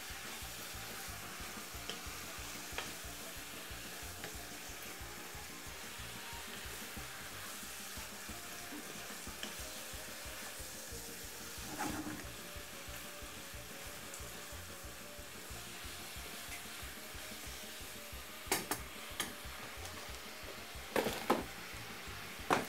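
Pork, pepper and spinach stir-fry sizzling steadily in a frying pan while a wooden spoon stirs it. A few light knocks of the spoon against the pan come in the second half.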